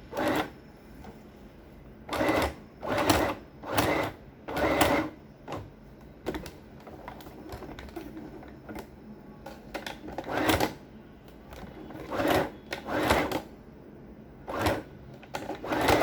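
Sewing machine stitching through thick, double-folded trouser fabric in about ten short separate bursts with pauses between them, slow going through layers thick enough to break the needle.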